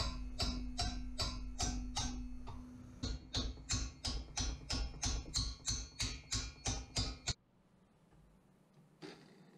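Steel hammer blows on a torch-heated steel flange clamped in a vise, bending it out: sharp, ringing, pitched strikes, about two and a half a second, with a steady hum under the first few seconds. The strikes stop abruptly about seven seconds in.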